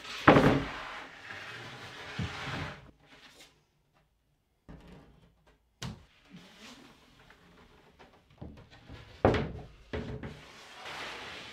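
A full sheet of plywood being handled: a loud knock as it is pulled from a storage rack, scraping against the stacked boards for a couple of seconds, then a heavy thump about nine seconds in as it is laid down on a table, followed by scraping as it is shifted on the tabletop.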